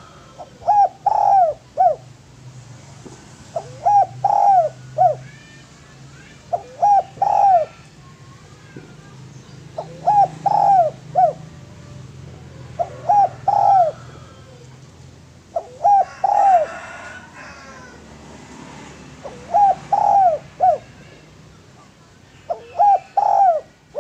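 Spotted dove (tekukur, derkuku) cooing: a short phrase of three or four low notes, repeated eight times about every three seconds.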